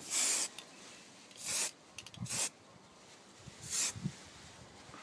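Aerosol can of grey acrylic spray primer hissing in four short bursts, each about a third of a second long, laying on light dusting coats.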